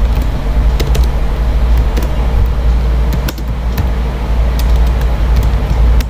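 Computer keyboard keys clicking irregularly as a word is typed, over a steady low rumble.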